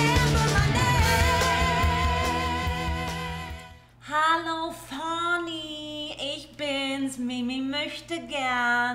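A pop music intro with a singing voice fades out over the first few seconds. Then a woman sings alone, unaccompanied, in drawn-out notes that slide up and down in pitch.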